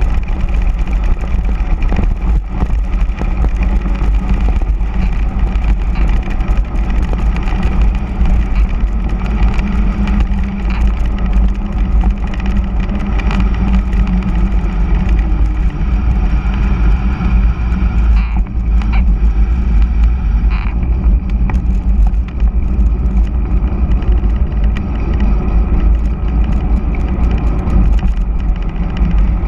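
Wind rushing and buffeting over the camera microphone on a fast bicycle descent, with the hum of all-terrain tyres on asphalt. A few short knocks about two-thirds of the way through.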